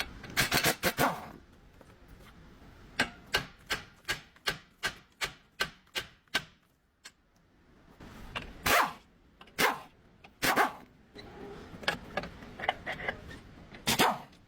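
Hand tools knocking and clanking on metal car parts: a quick run of evenly spaced sharp strikes, about two or three a second, then a few longer, heavier clanks.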